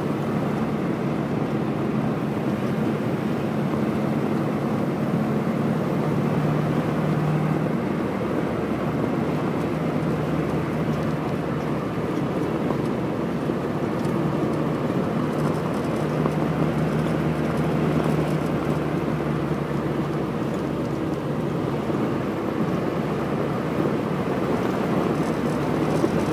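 1965 Morris Minor convertible being driven: its small four-cylinder A-series engine runs at a steady cruise under continuous road and wind noise, the engine note shifting a little in pitch now and then.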